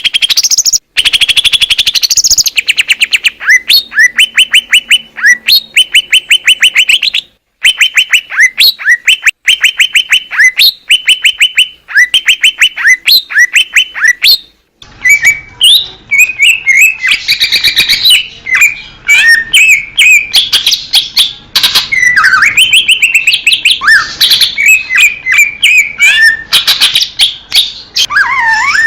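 Cucak ijo (green leafbird) singing: long runs of fast, evenly repeated chirping notes, then about halfway through a varied song of whistles and rising and falling slurs.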